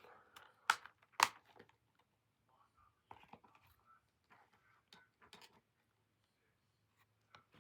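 Plastic Blu-ray case being opened by hand: two sharp clicks about a second in, as the case snaps open, then softer rustling and small plastic clicks as it is handled.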